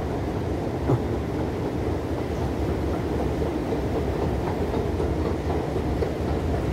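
Escalator running: a steady mechanical rumble from the moving steps and drive, with a single knock about a second in.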